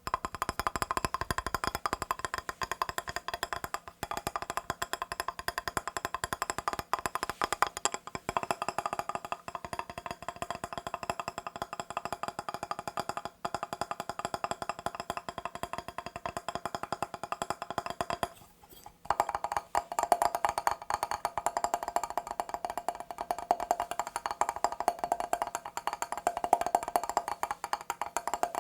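Very fast, continuous tapping on a mirror's glass surface, with a short pause about two-thirds of the way through before the rapid tapping resumes.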